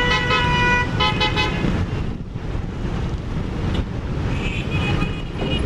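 Jammed road traffic: a dense rumble of idling engines with car horns honking over it. There is a long horn blast at the start, a few short toots about a second in, and a higher-pitched horn sounding in short blasts near the end.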